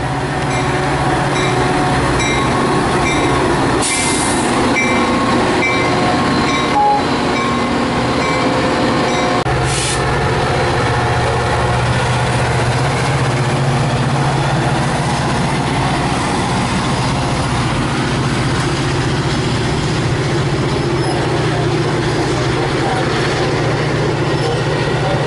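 Metra diesel locomotive and its bi-level passenger coaches passing close by. A ding repeats about twice a second for the first few seconds. The locomotive's engine hum grows stronger about ten seconds in as it goes past, then the coaches roll by with steady wheel-on-rail noise.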